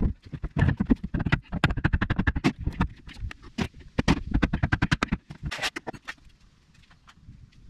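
Hand tools knocking and tapping rapidly and irregularly, several knocks a second, as a panel is worked loose from the vehicle's interior; the knocking thins out about six seconds in.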